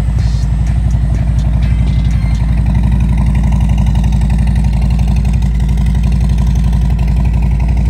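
Harley-Davidson Street Glide's V-twin engine running steadily with a rapid, low pulsing beat.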